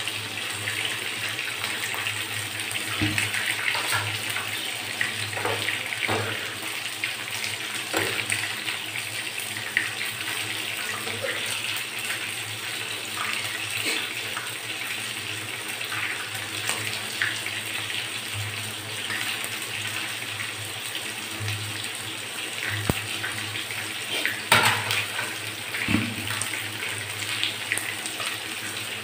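Steady bubbling hiss of a pan of sardines and water spinach (kangkong) boiling, beside a pan of chicken frying on a gas stove, with a few short clicks of a spatula against the pan as it is stirred.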